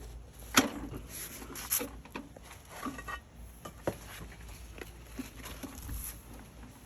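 Scattered light knocks and clicks of parts being handled, the sharpest about half a second in.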